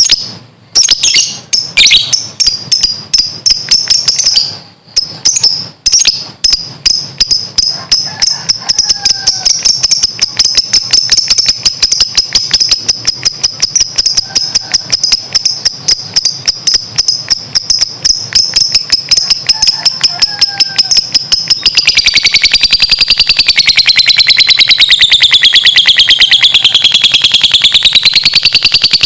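Lovebird giving its long 'ngekek' call: a loud run of rapid high chirps that speeds up. About three-quarters of the way through it becomes a continuous fast trill that wavers up and down in pitch.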